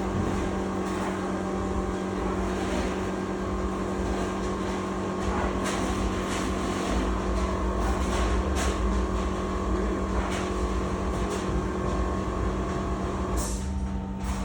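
Steady hum of running machinery with a low rumble underneath. A higher tone in it cuts off about thirteen seconds in, and a few short hisses come and go.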